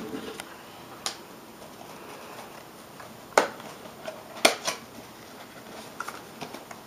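Small cardboard CPU retail box being opened by hand: a few sharp clicks and snaps as the end flap and its paper tab are pried and pulled. The loudest snap comes about three and a half seconds in, with a quick pair a second later, then lighter ticks of cardboard handling.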